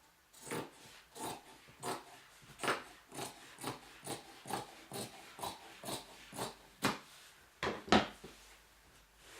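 Scissors cutting through fabric in a run of quick snips, about three a second, with one louder snip near the end, trimming the excess around a piece to leave a seam allowance.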